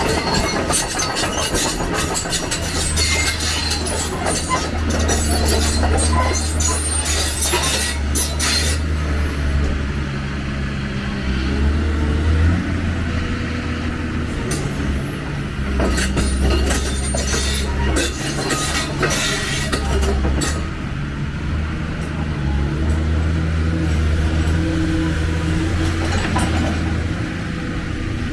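Heavy excavator running with a loud, low diesel drone that rises and falls with load, while its steel tracks clank and squeal against metal. The clanks come thickly in the first half and again briefly past the middle.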